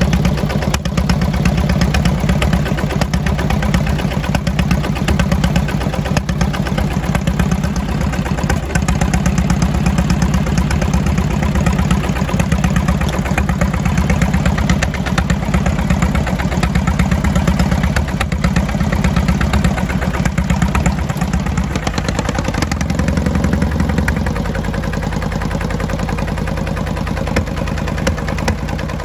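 Air-cooled inline two-cylinder Wisconsin THD 18 hp engine in a Sears GT/18 garden tractor, running steadily through upright open exhaust stacks, with a slight change in tone about three-quarters of the way through. It runs smoothly.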